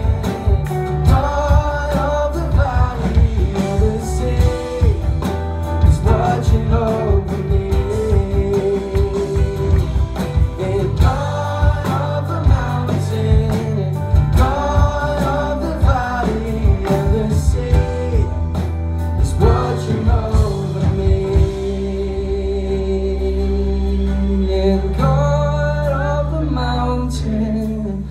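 Live church worship band playing and singing a gospel-style song: voices over acoustic guitar, keyboard and bass with a steady beat. About 21 seconds in the beat drops out, leaving the singing over long held low notes.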